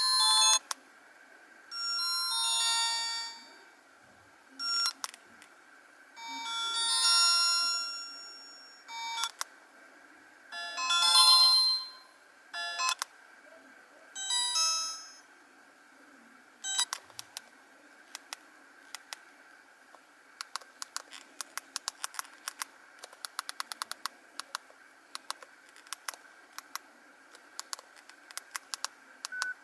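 Alcatel 1010D mobile phone playing short snippets of its built-in ringtones one after another through its small speaker, each cut off after a second or two. In the second half come many short, rapid clicks, dense for the last several seconds.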